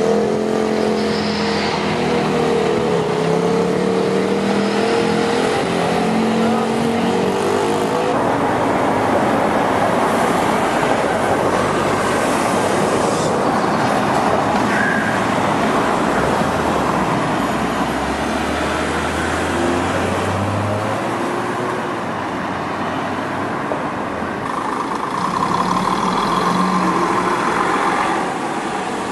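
Town-centre road traffic. First, a Volvo single-decker bus's diesel engine runs and shifts in pitch as the bus moves off. After a cut about eight seconds in comes steady traffic and tyre noise, with a heavy lorry's engine rumbling and rising in pitch around the middle, and a coach's engine near the end.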